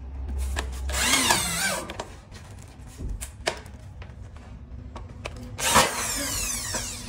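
Corded Bosch drill driving screws into a metal frame, its motor whining in two short runs, about a second in and near the end. The second run falls in pitch as the drill winds down. Small clicks and knocks come in between.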